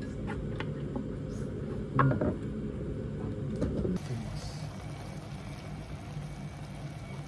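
Sukiyaki simmering in its pot, with tofu and vegetables frying in the broth as chopsticks turn them. A short clink of tableware about two seconds in.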